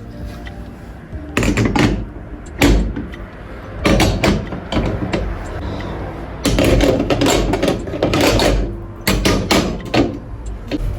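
Irregular knocks and clattering of hard objects being handled, in several separate bursts with rustling noise between them.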